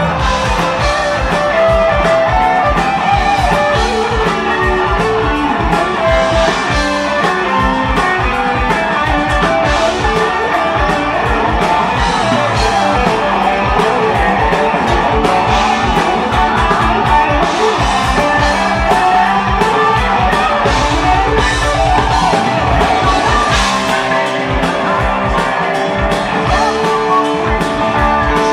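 A heavy metal band playing live, loud and continuous: electric guitars over rapid, pounding drums.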